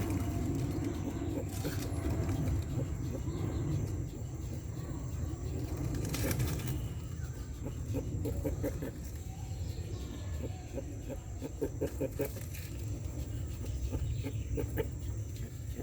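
Male tortoise calling while trying to mate: short clucking grunts in quick runs of several, repeated every few seconds, over a steady low rumble.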